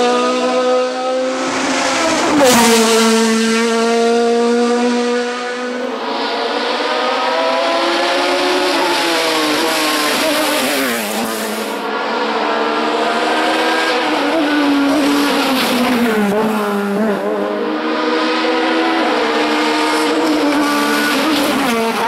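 Sport-prototype race car engine run hard through hairpins: a quick rev blip about two and a half seconds in, then the pitch climbing and dropping again and again through the gear changes as it accelerates away.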